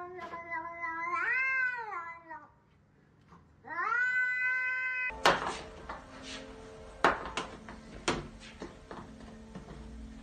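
A cat meows twice. The first call is long and rises in pitch part-way through; the second follows after a short pause. After that come a few sharp knocks and thumps from a cat leaping onto a hanging ball-shaped pod, over a low steady hum.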